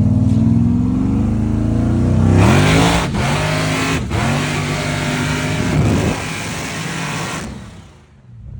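Supercharged big-block V8 in a Chevy Nova accelerating hard, its pitch climbing through the gears. A loud rush of noise joins in over the middle stretch, and the sound falls away near the end.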